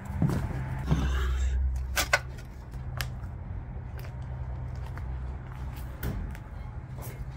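Footsteps over a floor littered with broken plywood, drywall and insulation: scattered sharp knocks and crunches about once a second, over a steady low hum.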